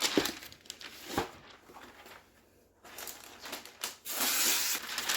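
Parchment paper crinkling and rustling as it is pulled off the roll, torn and pressed into a baking pan. There are two short knocks in the first second or so and a longer, steady rustle about four seconds in.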